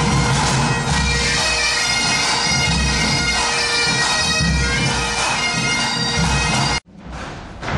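A bagad plays live: Breton great bagpipes over their steady drone, with a bass drum keeping a regular beat beneath. The music cuts off abruptly near the end and gives way to a few short knocks.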